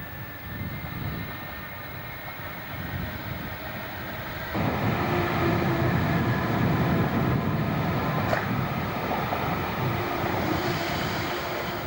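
EPB slam-door electric multiple unit running beneath an overbridge. Its steady rumble of wheels and motors, with a faint hum, jumps louder about four and a half seconds in as the train comes underneath. There is a single sharp click a little after the middle.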